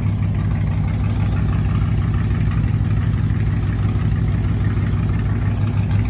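Chevrolet Camaro SS V8 idling steadily while misfiring on cylinder 6. The owner suspects a fuel injector, or something internal, since new spark plugs and a coil pack have not cured it.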